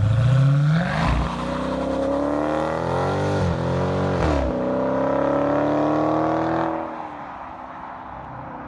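A car engine accelerating hard, its pitch climbing and dropping at each gear change, then fading away near the end.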